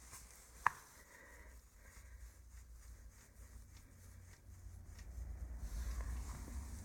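Faint handling noise from hands working on the compressor's parts: one sharp click a little under a second in, then light clicks and rustling, with a low rumble growing louder near the end.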